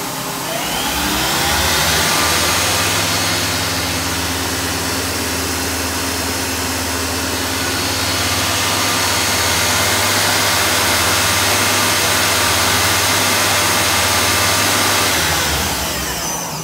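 Miyano BND-34S3L CNC lathe spindle drive spinning up over about two seconds with a rising whine, running steadily at speed, then winding down shortly before the end.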